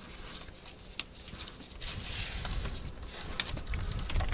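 Adhesive Velcro tape and its paper backing being handled and pressed along a metal door frame: rustling and crinkling with a few sharp clicks and taps. A low rumble builds near the end.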